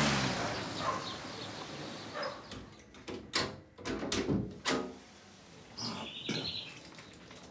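A handful of sharp knocks or clatters in the middle, then a short, rapid chirping bird call near the end.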